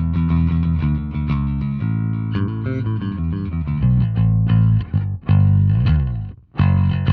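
Electric bass with two split-coil P-bass pickups, both on, played with a pick through an Ampeg SVT amp simulation: a line of picked, sustained notes with a slide in pitch about six seconds in and brief gaps near the end.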